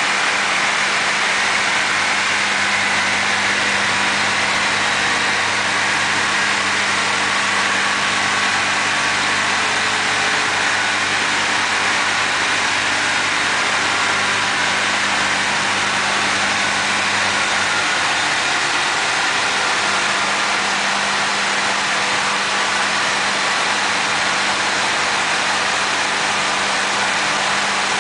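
Cork sawing machine running steadily as it slices agglomerated cork blocks: a continuous low hum with a broad, even hiss over it.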